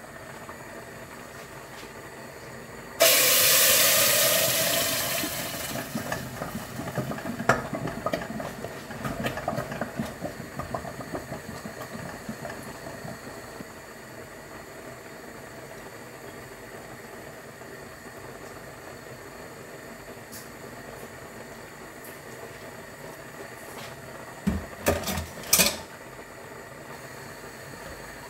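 A sudden loud sizzle about three seconds in, fading away over several seconds, as orange vegetable purée goes into hot olive oil in a steel cooking pot, with spoon stirs and clinks through it. A few sharp knocks of a utensil on the pot come near the end, over the low steady hiss of the stove and boiling pot.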